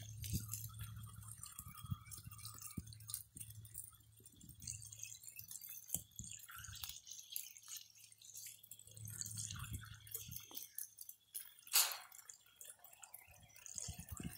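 Water trickling and dripping from a garden hose spray nozzle that a capuchin monkey is mouthing and covering with his hand, with small irregular splashes. One sharper, louder sound near the end.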